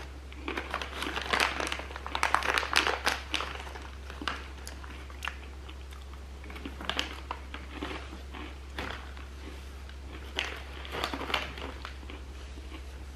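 Biting and crunching a chocolate-and-caramel-drizzled pretzel close to the microphone, with dense crisp crackles over the first few seconds, then scattered crunches and crinkles as chewing goes on.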